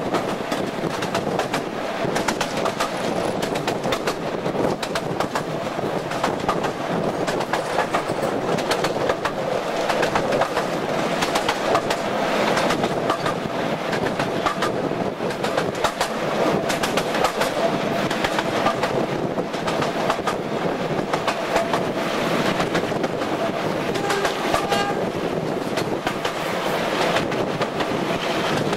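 Diesel-hydraulic locomotive hauling a passenger train at speed, heard from a carriage window just behind it: a steady rush of running noise with rapid clicking of wheels over rail joints and a steady whine from the locomotive.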